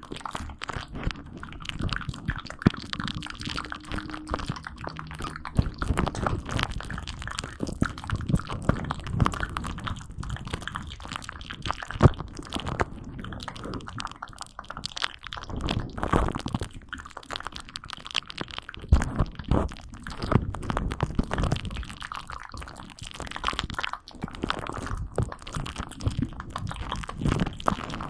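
Close-miked ASMR crunching: dense, irregular crackles and clicks throughout.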